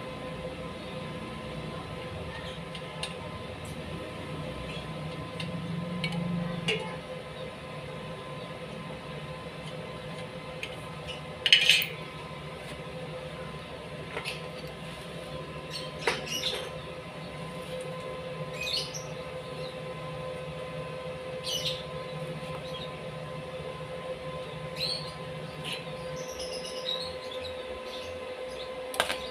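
Occasional sharp metal knocks and clinks from handling parts on a welded steel bike frame, the loudest about a third of the way in, over a steady low hum.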